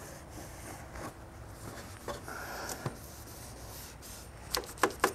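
Cloth wiping down a plastic engine air box cover: a faint rubbing, with a few light clicks near the end.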